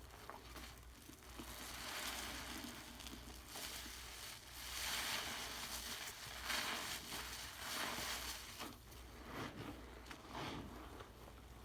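Crackling, crunching noise from a cleaning sponge soaked with Pinalen cleaner being squeezed, in several rough surges.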